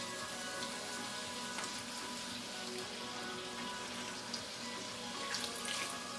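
Potatoes sizzling steadily as they fry in a skillet of hot fat, with a few light clicks of a fork against the pan near the end.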